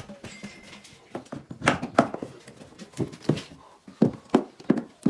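A raccoon stuck inside a wall vocalizing in a string of short, harsh bursts, about eight of them starting a second and a half in.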